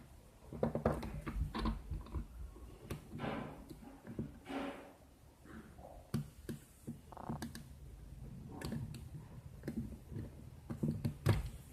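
Irregular light clicks, taps and thunks of hard objects being handled, a few every second.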